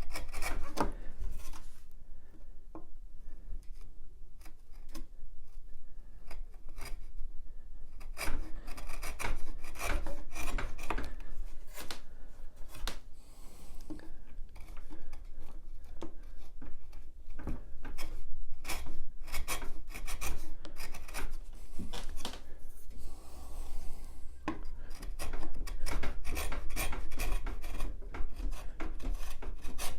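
Bench chisel paring pallet wood down to a marked line, a run of short scraping cuts. The cuts are few and quiet for the first several seconds, then come thick and fast from about eight seconds in.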